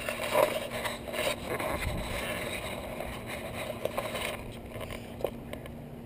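Handling noise from an action camera being moved and set down on a table: irregular rubbing, scraping and knocks on the camera body that die away about four seconds in, leaving a few faint ticks.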